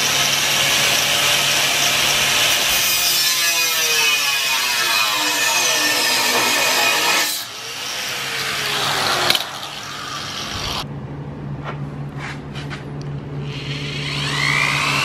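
Angle grinder with a cut-off wheel cutting through a thin metal bar: a loud, steady grinding that starts abruptly and drops away about seven seconds in, with the motor hum carrying on underneath. Near the end a cordless drill with a step bit bores into a metal strip, a rising whine.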